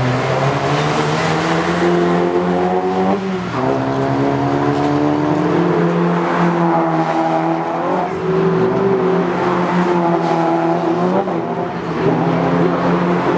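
Toyota Vios Challenge race cars, with 1.5-litre four-cylinder engines, accelerating hard past the track. The engine note climbs through each gear and drops sharply at upshifts several times.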